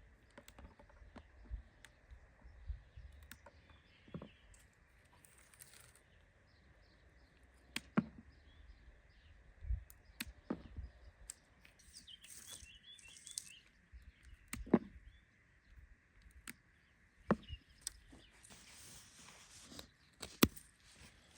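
Irregular sharp clicks and taps of willow rods being handled and woven, with birds chirping faintly in the background.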